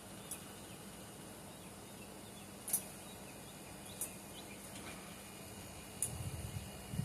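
Faint outdoor background broken by a few sharp clicks, the loudest about three seconds in, and a short low rumble near the end. These are the knocks of metal-casting tools being handled while molten silver is poured.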